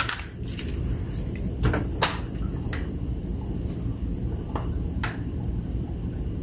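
Sublimation ink refill bottle draining upside down into an Epson ET-15000's ink tank, glugging as air bubbles up into it: a handful of short, sharp pops over a low rumble, with a knock near the start as the bottle is seated.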